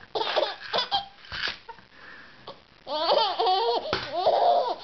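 Eight-month-old baby laughing hard in repeated bursts of giggles and belly laughs, loudest in the second half. Short knocks of plastic pill bottles toppling on the table come between the laughs.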